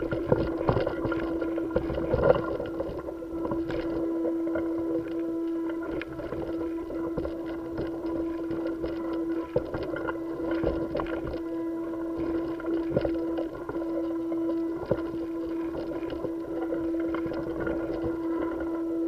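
Steady mechanical hum holding one constant tone, with scattered small knocks and scrapes. It is picked up by a helmet-mounted camera during a spacewalk, where no air carries sound and only vibration passing through the suit and camera housing reaches the microphone.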